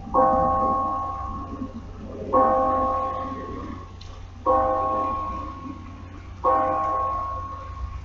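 A tower bell tolling slowly: four strokes about two seconds apart, each ringing out and fading before the next.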